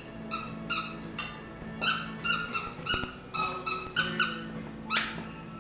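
A dog toy's squeaker squeaking over and over as a dog chews it: about a dozen short, high squeaks at an uneven pace, one near the end sliding down in pitch.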